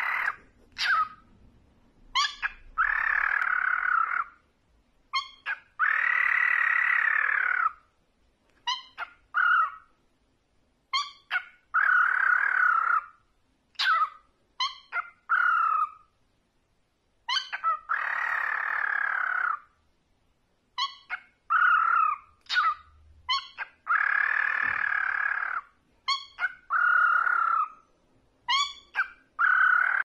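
Cockatiel calling over and over: a few short sharp chirps, then a long drawn-out screech, the pattern repeating about every three seconds.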